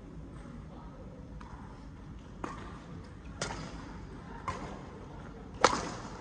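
Badminton rackets striking a shuttlecock during a doubles rally: five sharp hits about a second apart, the last one much louder, with a short reverberation after it.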